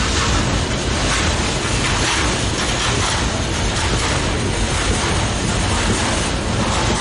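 CSX freight train's container flatcars and tank cars rolling past close by: a loud, steady rumble and rattle of steel wheels on rail.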